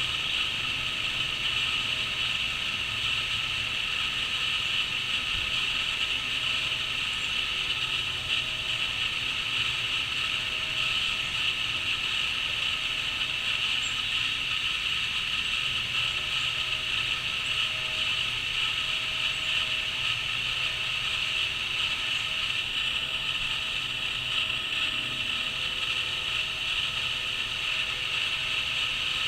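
Crickets chirring in a dense, steady chorus, a high continuous trill that never breaks.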